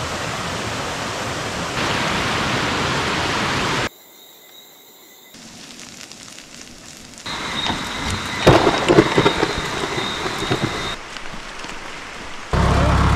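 Heavy rain falling, in several stretches with abrupt cuts between them, and loud cracks of thunder about eight to nine seconds in. A loud steady low hum begins near the end.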